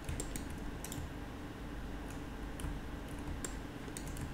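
Scattered clicks of a computer keyboard and mouse, about ten in all, over a faint steady hum.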